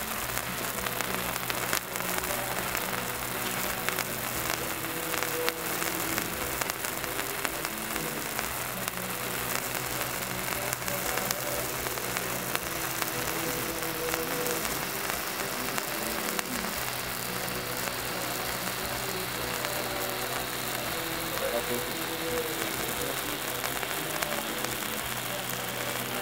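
Broekhoff ice fountain firework burning with a steady hiss of spraying sparks, holding an even level throughout.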